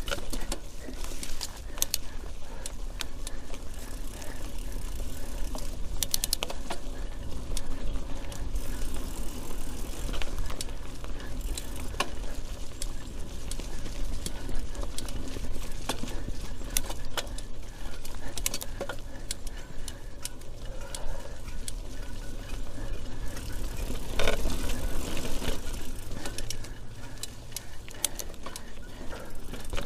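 Mountain bike ridden over a rough, wet trail, heard from a camera mounted on the bike: a steady rumble from the tyres and wind, with the chain and frame rattling and clicking over roots and bumps, and a louder, briefly pitched stretch about 24 seconds in.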